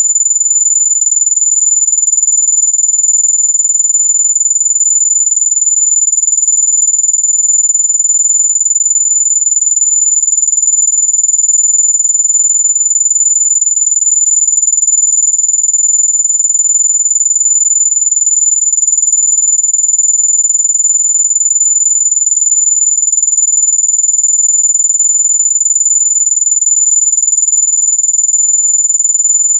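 Electronic mosquito-repellent tone: a single steady, very high-pitched pure tone held unbroken and loud, the kind of high tone sold as a way to keep mosquitoes and bugs away.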